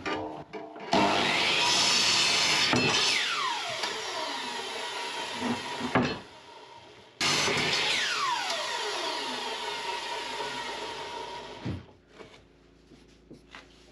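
Electric mitre saw run twice, each time starting with a loud whir as it cuts through a timber floor beam, then the blade winding down with a falling whine over several seconds. A few short knocks of wood being handled come between the runs and near the end.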